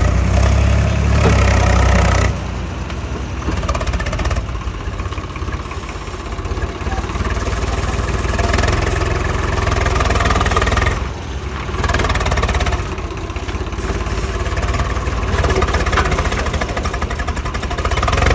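Heavy diesel engines of a tractor and a truck running hard under load, trying to push the truck out of deep mud. The engine noise swells and eases, with a few abrupt changes in level.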